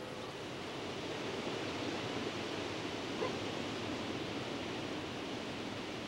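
Flowing water: a steady, even rush, with one small tick a little past three seconds in.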